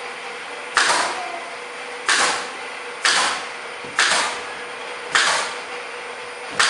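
Six sharp knocks about a second apart, each fading quickly, as interpreter-booth wall panels are knocked into their aluminium frame. A steady hum runs underneath.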